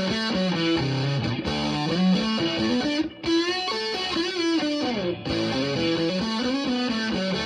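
Electric guitar played through a fuzz pedal with its bass and mid boost switched on and the fuzz turned fully up, into a small tube amp: a thick, distorted riff with sliding, bent notes around the middle and two brief breaks in the sound.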